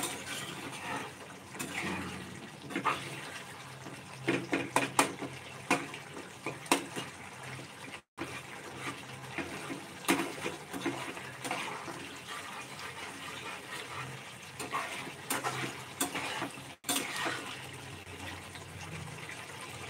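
Thick egg curry gravy bubbling and sloshing in a pan as a flat steel spatula stirs it, with many short scrapes and taps of the spatula against the pan.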